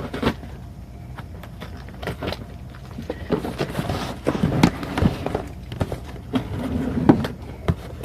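Packaging being pulled open and handled: rustling with scattered sharp clicks, knocks and thumps, busiest in the middle.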